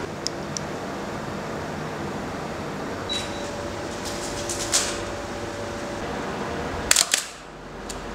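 Medium-format film camera shutter clicking several times over a steady low room hum, the loudest clicks about five seconds in and a quick double click about seven seconds in. A short high beep sounds about three seconds in.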